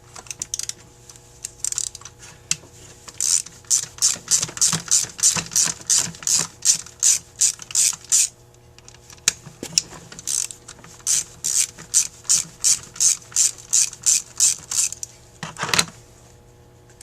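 A ratcheting hand tool clicking in quick, even strokes, about three a second, in two runs separated by a short pause. There is one louder knock near the end.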